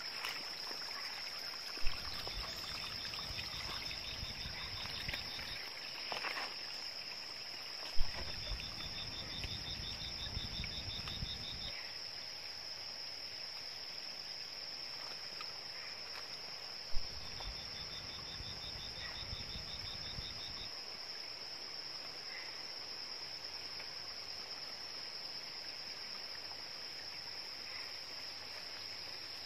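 Tropical forest ambience dominated by a steady, high-pitched insect drone. Three times, a sharp loud click is followed by a few seconds of low rumble and a rapid chirping trill.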